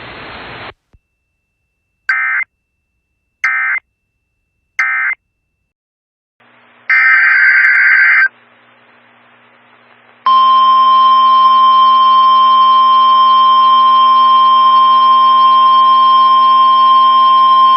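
Emergency Alert System signalling: three short warbling data-tone bursts, the end-of-message code, then a longer data burst, then a loud, steady alert tone near 1 kHz that starts about ten seconds in and holds. It marks the hand-over from one warning to the next.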